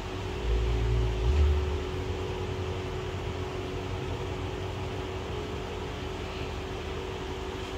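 A steady hum: a constant low tone under a hiss, with a brief low rumble about a second in.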